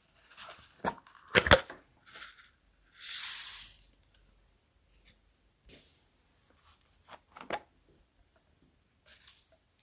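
Hard plastic items being handled: sharp knocks and clacks, loudest twice about a second and a half in and again near the end, with a short hissing rustle about three seconds in.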